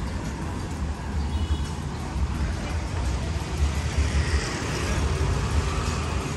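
Street traffic: cars driving slowly past close by on a narrow town street, a steady low engine and tyre rumble that grows brighter from about four seconds in as a car comes alongside.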